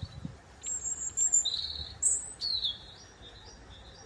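European robin singing: a run of short, high, thin warbling phrases and chirps, several in quick succession, some sliding down in pitch.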